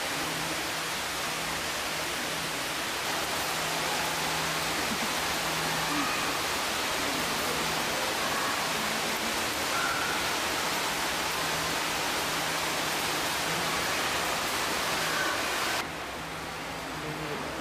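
Steady rain-like hiss of water spraying from an indoor artificial rain (squall) system, over a faint low hum. The hiss drops off abruptly near the end.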